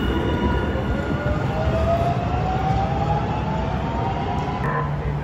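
Light-rail train accelerating away from a platform: a rising motor whine over a low rumble. Near the end another steady hum comes in.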